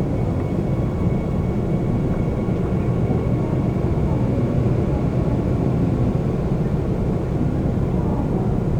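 Seoul subway train running: a steady low rumble of wheels on rails and the car's motors, even throughout.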